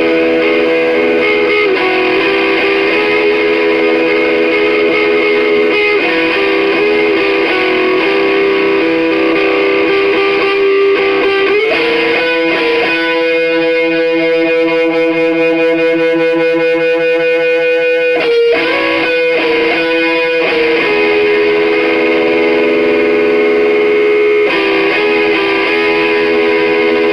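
Electra electric guitar played through an amplifier with some overdrive, sustained notes ringing one into the next, with one long held note about halfway through.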